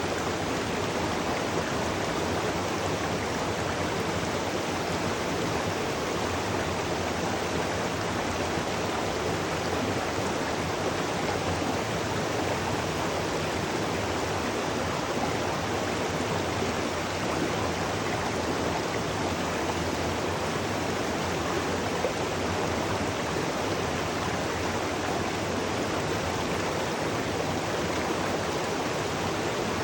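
Waterfall rushing steadily, an even full roar of falling water with no changes.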